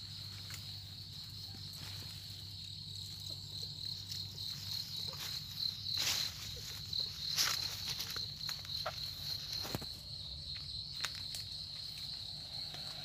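Steady high-pitched insect chorus, with leaves and stems rustling and crackling and footsteps as someone pushes through dense undergrowth; the rustling is loudest around the middle.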